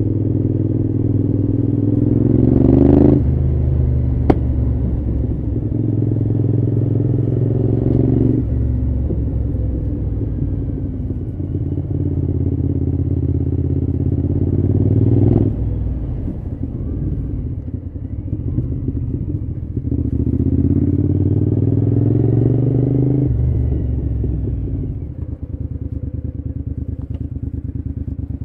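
Cagiva V-Raptor 1000's V-twin engine pulling hard through the gears, its note climbing and then dropping sharply at each upshift, four times, before easing off to a lower, quieter run near the end.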